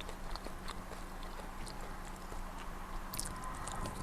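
A person chewing food with small, irregular mouth clicks and crunches, over a steady low hum.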